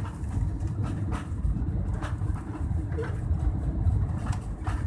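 Airbus A320-200 cabin noise on approach: a steady low rumble of engines and airflow, with irregular light knocks every half second or so.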